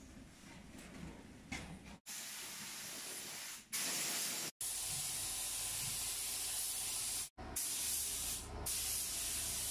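Compressed-air paint spray gun with a gravity-feed cup hissing steadily as it sprays paint onto a car body. The hiss starts about two seconds in and cuts off abruptly twice, about four and a half and seven seconds in, each time starting again.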